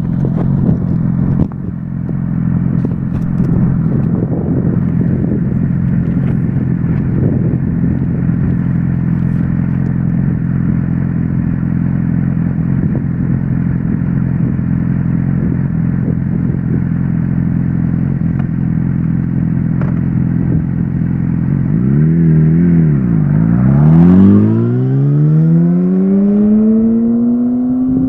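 Motorcycle engine running at steady revs. Late on, the revs dip and rise twice, then climb steadily as the bike accelerates.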